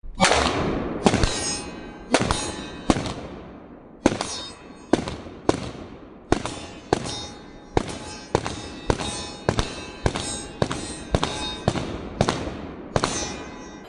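A long string of pistol shots, each with a ringing echo: at first about one a second, then quickening to nearly two a second.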